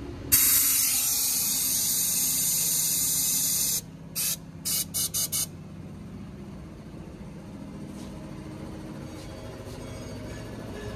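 Compressed air hissing through a venturi coolant vacuum-fill tool on the reservoir, as it is run to pull a vacuum on the cooling system: one loud hiss of about three and a half seconds, then five short bursts.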